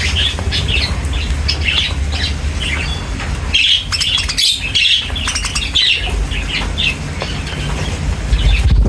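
Budgerigars chirping and chattering, many short quick chirps overlapping, over a steady low rumble.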